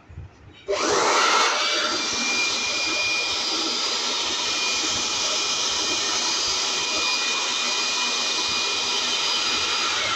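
Build Skill high-speed electric blower switched on at its top speed setting about a second in, spinning up with a brief rising whine, then running steadily as a loud rush of air with a high motor whine, its nozzle blowing straight down onto a scale's metal plate.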